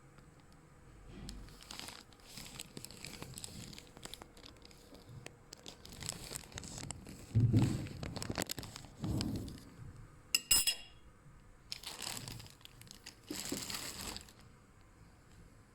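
Irregular rustling and knocking of parts being handled, with a few clinks and one short bright metallic ring about ten and a half seconds in.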